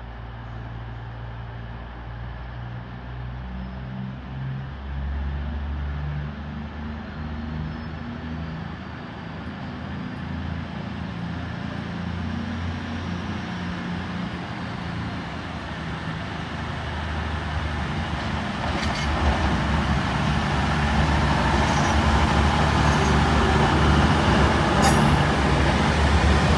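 CrossCountry Voyager diesel-electric multiple unit pulling away and passing close, its underfloor diesel engines running under power and growing louder as it nears. A few sharp clicks from the wheels over rail joints and points come near the end.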